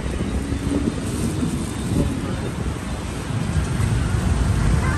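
Street background noise: a low rumble of passing traffic with wind buffeting the microphone.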